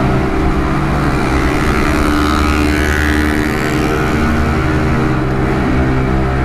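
Beta RR 125 motard's single-cylinder four-stroke engine with a modified exhaust, heard from the rider's seat running at a steady cruising speed through a road tunnel.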